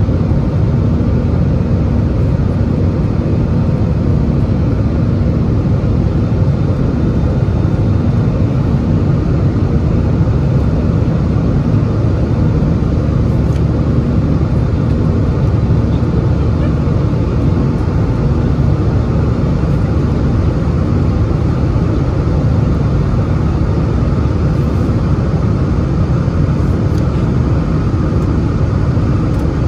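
Steady cabin noise of an Airbus A320-216 in flight, heard from a window seat by the wing: a low, even rumble of airflow and its CFM56-5B engines, with a faint steady hum.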